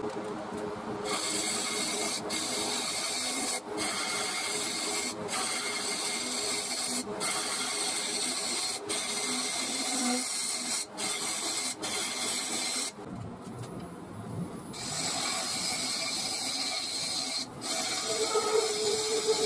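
Turning tool cutting into a spinning mulberry bowl blank on a wood lathe: a steady hissing, scraping cut as shavings fly. The cut breaks off briefly every second or two as the tool lifts, and for about two seconds past the middle only a lower hum is left.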